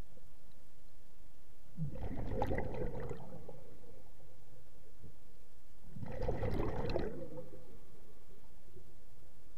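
A scuba diver's breathing underwater: two exhalations through the regulator, each a gurgling burst of bubbles about a second long, about four seconds apart.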